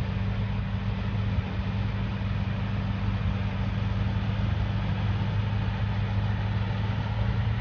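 BMW M6's 4.4-litre V8 idling steadily, a low even hum.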